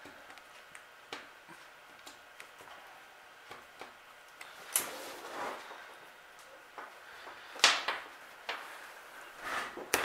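Fingers working a cloth-braided wire, handling its woven covering to open a gap for a branch splice: faint rustles and small clicks, with louder rustles about five and eight seconds in and again near the end.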